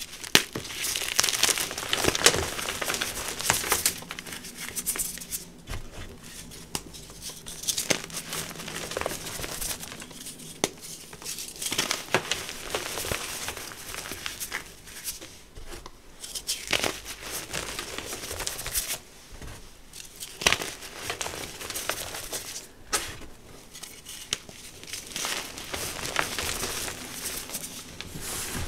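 Blocks of reformed gym chalk crushed and crumbled between the hands into powder: dry crunching and crackling in handful after handful, with brief pauses between.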